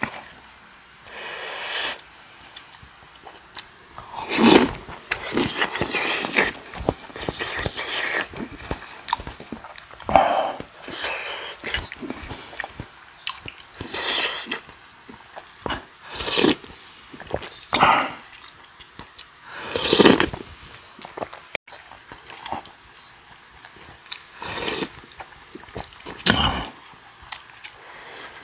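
Close-up eating sounds: slurping spoonfuls of crab soybean paste stew broth and chewing, in irregular bursts every second or two, with a spoon and chopsticks working in the earthenware pot.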